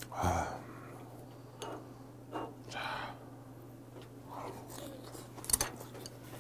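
A person eating a bite of tuna sashimi with chopsticks. A short vocal sound comes near the start, then soft mouth and chewing noises, and a sharp click about five and a half seconds in as the chopsticks are set down.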